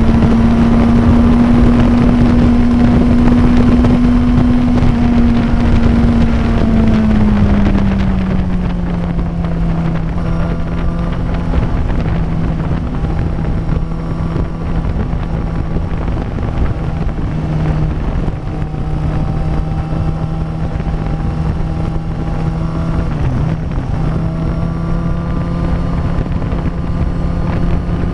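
Suzuki inline-four motorcycle engine running at a steady highway cruise, with wind buffeting the microphone. After a few seconds the engine note slides down to a lower steady pitch as the revs ease off.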